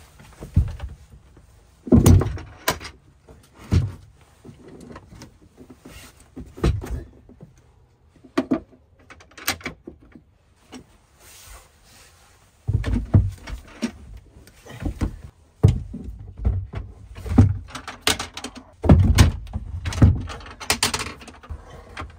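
Lithium iron phosphate batteries in plastic cases being set down on a plywood tray and shuffled into place: a run of irregular knocks and thuds, coming thicker in the second half.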